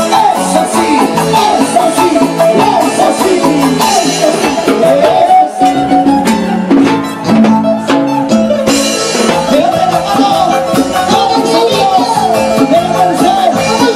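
Loud live band music played through stage speakers: a quick, wavering melody line over a steady beat with shaken percussion.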